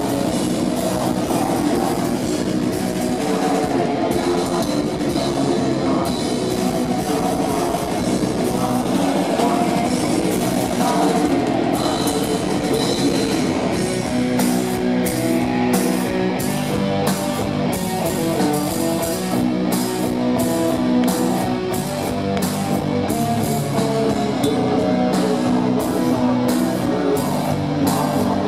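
Metal band playing live: distorted electric guitars over a drum kit, loud and dense, with the drums settling into an even, steady beat about halfway through.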